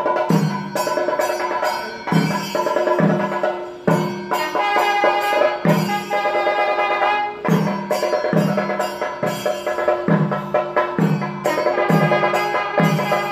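Kerala temple percussion ensemble (melam) playing: a steady, even drum beat under a sustained wind-instrument melody.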